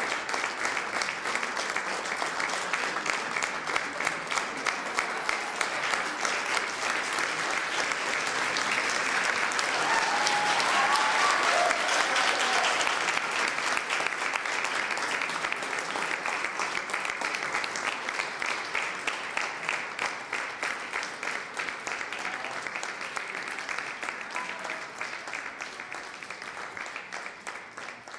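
Audience applauding, a dense patter of many hands clapping that swells to its loudest about ten seconds in and then gradually dies away.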